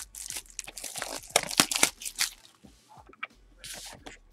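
A box of trading cards being unwrapped: its packaging is torn open and crinkled by hand in irregular crackling bursts, loudest in the middle.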